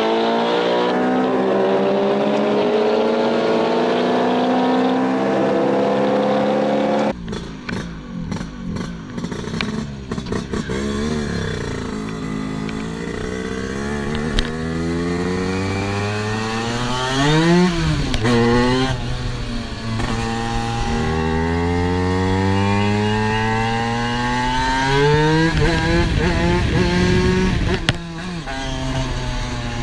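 Inside a Ferrari 458's cabin, its V8 accelerating with the engine note climbing steadily for about seven seconds. Then it cuts to a Vespa 50 Special with a 130 cc Quattrini kit: its two-stroke single revving high and dropping in pitch at each gear change, over and over.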